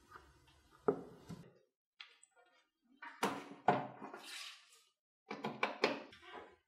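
Plastic clicks and knocks of cable plugs being handled: a power cable plugged into a power adapter, then a mains plug pushed into a power strip. There is a sharp click about a second in, a longer clatter around the middle, and a quick run of clicks near the end.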